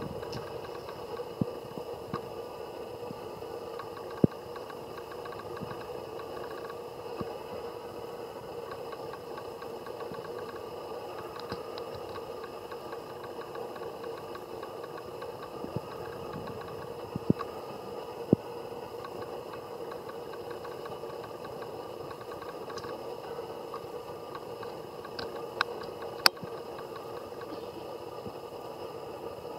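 Steady background hum and hiss with a few sharp clicks or snaps scattered through it.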